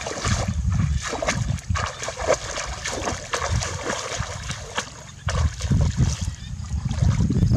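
Water splashing as legs wade through shallow, knee-deep paddy water, stride after stride. A low rumble comes in about two-thirds of the way through.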